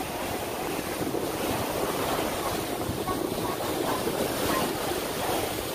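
Steady wind noise on the microphone mixed with the rushing wash of sea water.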